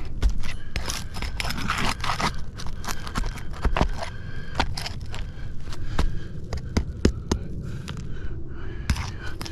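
Brittle roof shingles scraping and crackling as they are worked, with many sharp clicks and snaps; the shingles are very brittle.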